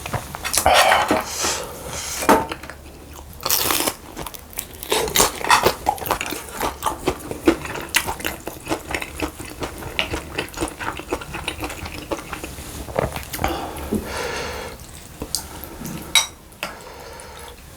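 Eating utensils clinking and scraping against a dish during a meal, in many short irregular clicks.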